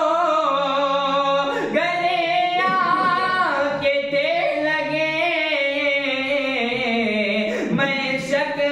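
A man singing an Urdu ghazal unaccompanied in tarannum style, holding long drawn-out notes that bend up and down.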